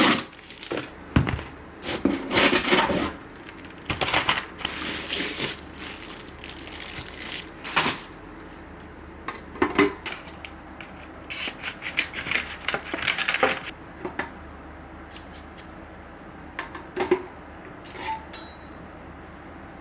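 Modori kitchen knife set being unboxed: packaging rustling, with knives and metal pieces clinking and clattering as they are handled. The handling is busy at first and thins to scattered clicks after about two thirds of the way through.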